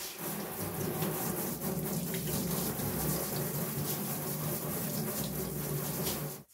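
Water spraying from a handheld sink sprayer onto a deba kitchen knife's blade and splashing into a stainless steel sink, rinsing off the sharpening slurry. The spray is steady, starting abruptly and shutting off suddenly near the end.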